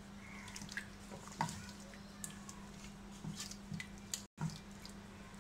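Chicken pieces simmering in a thin spiced gravy in a nonstick frying pan, with a few light scrapes and taps of a silicone spatula stirring them, over a low steady hum.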